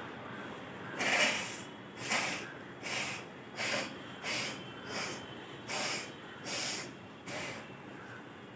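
A person forcefully blowing air out through the nose in nine short, sharp blasts, about one every three-quarters of a second.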